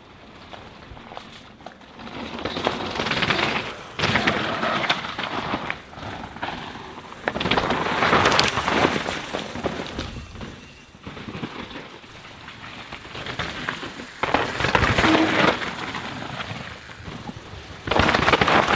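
Downhill mountain bikes passing close one after another on a wet, rooty dirt track: tyres tearing through mud and over roots, with rattling chain and clattering suspension, rising and falling as each rider goes by, about five passes.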